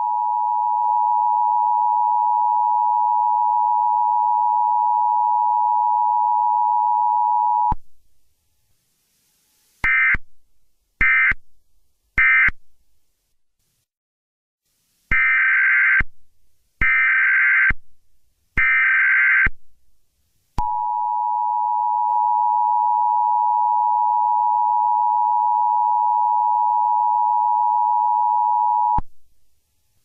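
Electronic beep tones: a long steady beep lasting about eight seconds, a pause, three short higher beeps, three longer higher beeps, then the long steady beep again.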